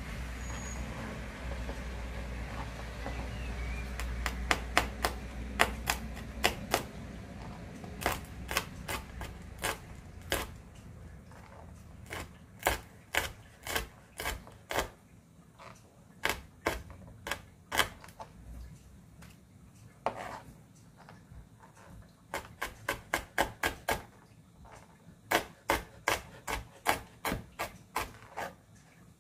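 Kitchen knife chopping on a cutting board in runs of sharp knocks, some runs quick and even at about four to six a second, with pauses between. The ingredients are being minced fine by hand in place of pounding them in a mortar.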